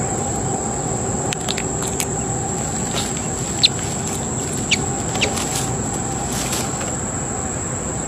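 Dry twigs and pine needles of a hawk's nest crackling and snapping as the bird shifts and steps across it, with a few sharp snaps, the loudest about halfway through. Under it, a steady outdoor hiss with a constant high insect drone.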